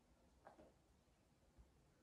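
Near silence: room tone, with a faint brief soft sound about half a second in.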